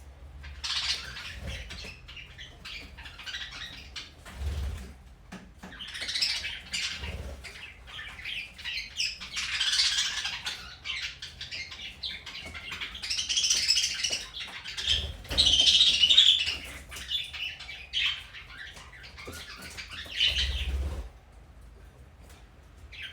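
Pet budgerigars chattering and chirping in rapid, irregular bursts, with a few soft low thumps in between.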